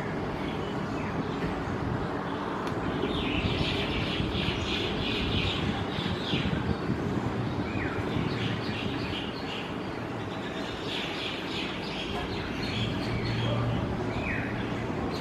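Birds chirping in several bursts of rapid, high trills, with a few short falling whistled notes between them, over a steady low background rumble.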